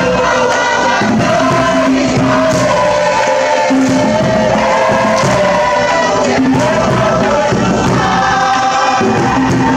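A large Cook Islands group of men and women singing together in several held, sliding voice parts, with hand clapping beneath.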